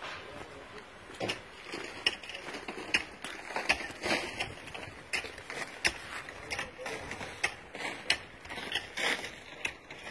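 Footsteps crunching on snow-dusted dirt and gravel, an uneven series of short crunches about two a second.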